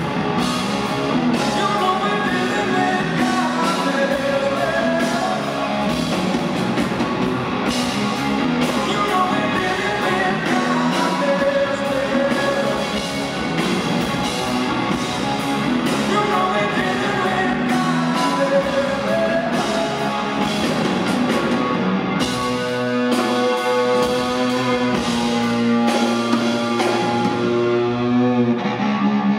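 Rock band playing live in a concert hall, a male lead singer singing over drums and electric guitar. About 22 seconds in the vocal drops out and the band carries on with an instrumental passage.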